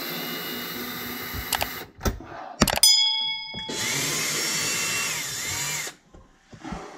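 Cordless drill backing out the screws that hold the dishwasher's mounting bracket to the underside of the countertop. It runs in two spells of about two seconds each, the second with the speed rising and falling. Between the spells come sharp clacks and a brief metallic ring.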